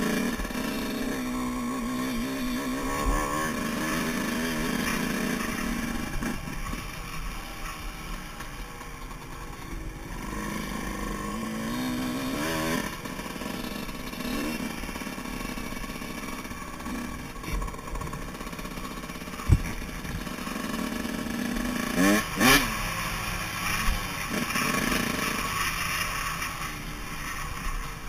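Yamaha YZ125's two-stroke single-cylinder engine revving up and down as the bike is ridden around a dirt motocross track, heard from the rider's helmet. A sharp knock about two-thirds of the way through, then a quick rev soon after.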